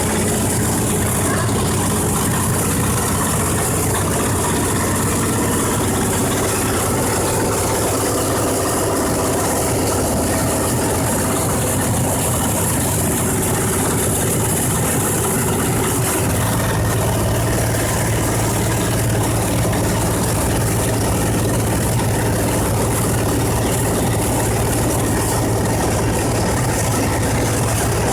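Pillow-filling blower machine running steadily, churning silicone dacron fibre to shred and fluff it; its low hum changes and grows fuller about halfway through.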